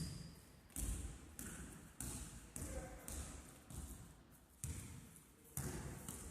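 A basketball being dribbled on a gym floor, a bounce roughly every half second or so, with a short break near the end.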